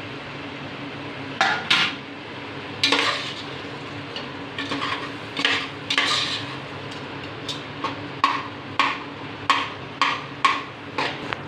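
A ladle stirring and scraping around a pot of sautéing tomatoes and green chillies, in about a dozen short strokes that come quicker in the second half, over a steady low hum.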